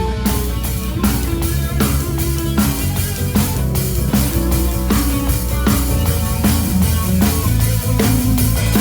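A rock band playing live: a drum kit keeps a steady beat under guitar and bass.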